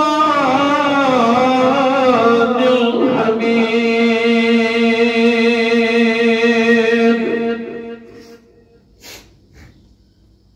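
A man chanting in a religious vocal style: an ornamented, wavering melodic line, then one long steady note held for several seconds that fades out about eight seconds in. Two soft knocks follow.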